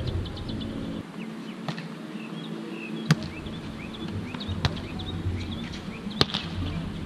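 Beach volleyball being struck by players' hands during a rally: four sharp slaps about a second and a half apart, the loudest about three seconds in and just after six seconds, the last one a spike. Birds chirp throughout.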